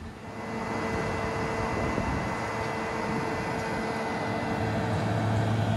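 Steady mechanical whir with a faint high whine from a rotating-arm tower ride's machinery as it runs. A lower hum joins about four and a half seconds in.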